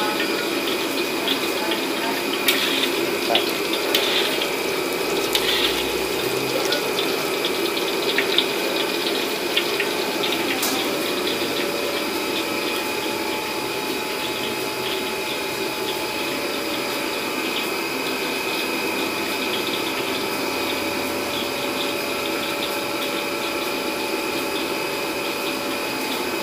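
Cooking oil heating and sizzling in a wok: a steady hiss with many light crackles throughout, the crackles thicker in the first half.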